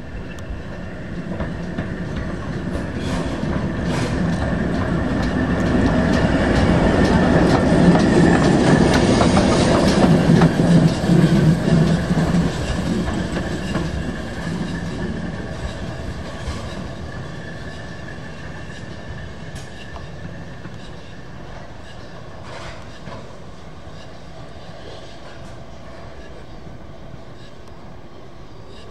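GWR Grange-class 4-6-0 steam locomotive No. 6880 Betton Grange running slowly on the rails, with wheels clacking over rail joints and points. The noise swells to its loudest about a third of the way through, then settles to a quieter steady running.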